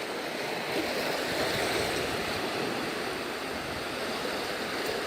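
Sea waves washing gently onto a beach, a steady wash of surf.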